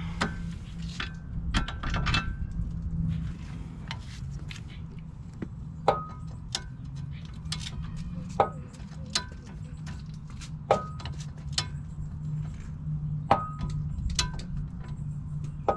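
Sharp metallic clicks and clinks of a torque wrench and socket working the nut on a new tie rod end, coming irregularly every half second to second and a half, over a steady low hum.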